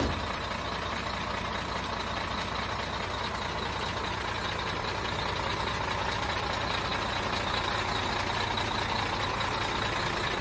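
Sinotruk HOWO truck's diesel engine idling steadily.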